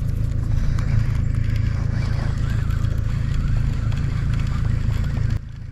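A small fishing boat's outboard motor running steadily with a dense low pulsing hum. It cuts off abruptly near the end.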